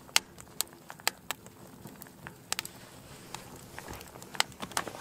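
Wood crackling and popping in a portable sheet-metal camp wood stove: about a dozen sharp, irregular pops over a faint steady background. Scrap wood is being burned hot to burn the stove clean.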